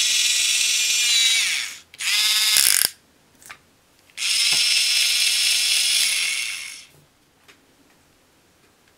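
Toy dentist drill from a Play-Doh drill-and-fill playset whirring in three runs, each winding down with falling pitch at its end. The third run starts about four seconds in.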